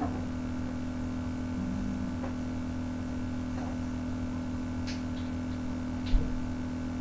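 Steady low electrical hum of room tone, with a few faint clicks about five seconds in and a single dull thump a little after six seconds.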